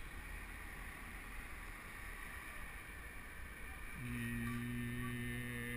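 Bicycle tyres rolling over pavement, a steady low rumble. About four seconds in, a steady low hum with overtones joins.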